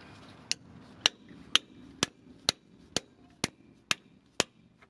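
A hammer striking a 3/8-inch socket extension used as a drift to drive out a front brake caliper pin on a 1990 Ford Ranger: nine sharp metallic blows, evenly paced at about two a second.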